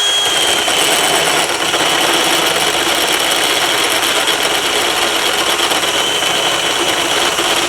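Power drill running steadily as a titanium step drill bit cuts through a steel arbor washer to enlarge its hole, a thin high whine riding over the cutting noise.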